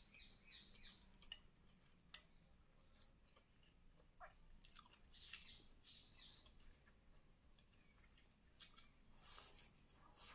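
Faint chewing and wet mouth smacks of someone eating chicken adobo and rice by hand, with a few soft scattered clicks.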